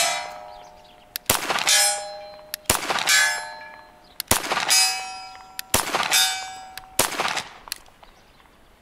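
Five 9mm shots from a Glock 34 pistol, about a second and a half apart. Most are followed a moment later by the ring of a distant steel target being hit, a ringing clang that fades over about a second.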